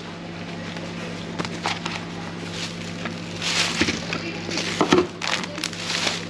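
Thin plastic carrier bag rustling and crinkling as it is opened and filled. It comes in several bursts from about three seconds in, with a couple of light knocks, over a steady low hum.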